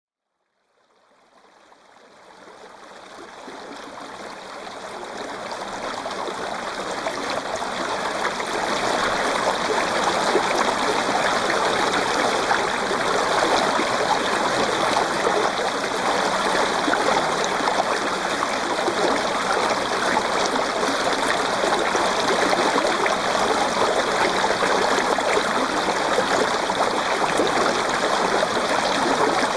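Running water like a flowing stream, a steady rushing and trickling that fades in from silence over the first eight seconds or so and then holds even.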